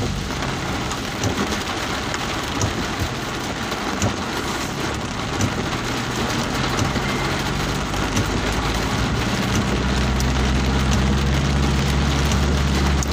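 Heavy rain pelting a moving vehicle, a dense hiss full of tiny drop impacts, with the vehicle's engine running underneath. About eight seconds in, a steady low engine drone comes up and grows louder.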